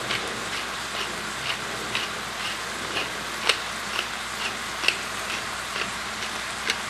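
Sliced mushrooms sizzling steadily in a hot stainless steel pan, with a pepper mill grinding black pepper over them in regular crunching twists, about two a second.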